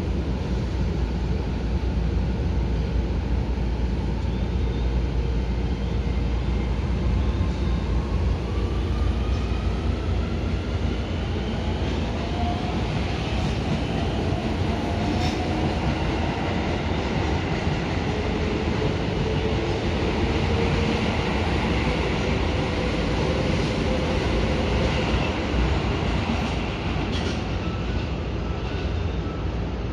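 Keio electric train departing on the adjacent track: steady rumble of wheels on rail, with a motor whine rising in pitch as it accelerates, twice over. Heard from inside a train standing with its doors open.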